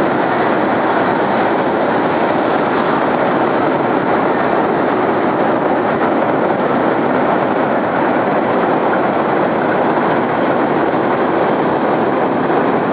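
CN freight train rolling across a long railway trestle: a steady, even rumble of wheels on rails.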